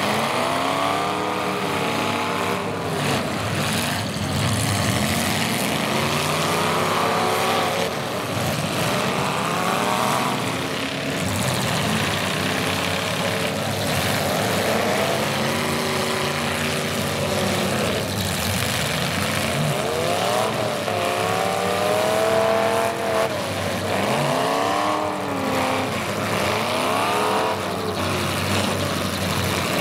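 Several demolition derby cars' engines revving hard and dropping back, over and over and overlapping one another, with a few knocks mixed in.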